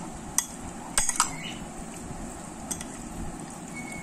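Spoon clinking against a glass bowl while stirring chicken pieces into a yogurt and spice marinade: a few sharp clinks, the loudest pair about a second in, with a short ring after one of them.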